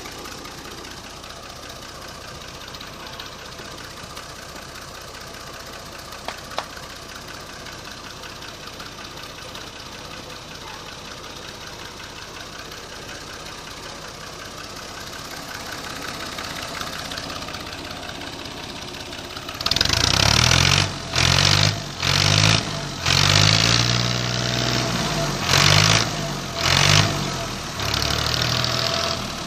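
New Holland tractor's diesel engine idling steadily, then, about two-thirds of the way in, revved in a series of loud, short throttle bursts whose pitch rises and falls. The revving is heard close to its upright exhaust pipe.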